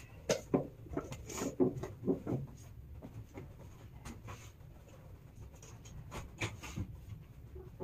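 Light knocks, clicks and clatter of items being handled and set down in a kitchen, busiest in the first couple of seconds and again around four and six seconds in, over a low steady hum.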